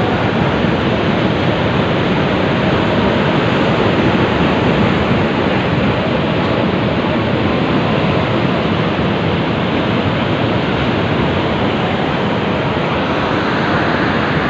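Steady, loud rush of waves and wind, an even noise with no separate events.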